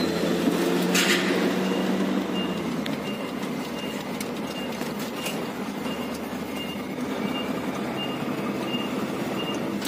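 Turbocharged diesel engine of a UD Nissan truck running as the truck moves off, heard from inside the cab. A short high beep repeats about twice a second from a couple of seconds in.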